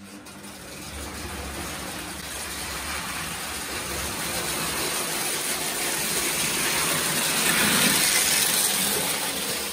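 Lionel O gauge toy trains running on metal track: a steady rumble of wheels and motors that swells as a train passes close, loudest about eight seconds in.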